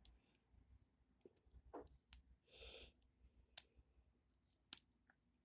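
A few faint, separate small clicks, about four in all, from a deadbolt lock and its key being handled, with a soft breath about two and a half seconds in.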